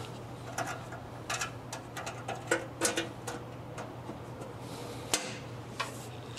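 Sharp metal clicks and clatters as the blade guards on a horizontal cutoff saw are handled and locked down. There is a quick run of them in the first three seconds, then two single clicks near the end, over a steady low hum.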